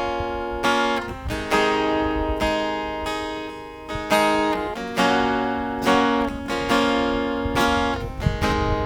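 Acoustic guitar strumming chords, a fresh strum about once a second with the notes ringing between: the instrumental introduction to a worship song.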